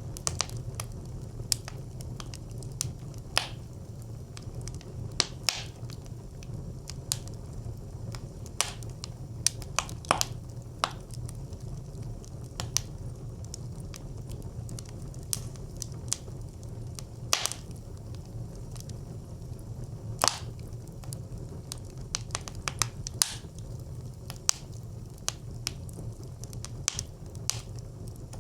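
Wood fire crackling and popping inside a brick clay stove: irregular sharp pops, a few a second, over a steady low rumble of the flames.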